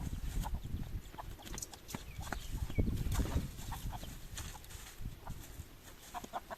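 Chickens clucking in short scattered calls, over knocks and scuffs of movement close by.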